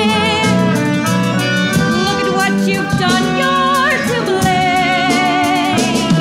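A musical-theatre song in performance: voices singing held, wavering notes over instrumental accompaniment.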